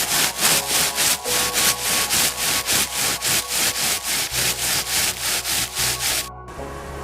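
Rhythmic back-and-forth rasping strokes, about three or four a second, like sawing. They stop suddenly about six seconds in.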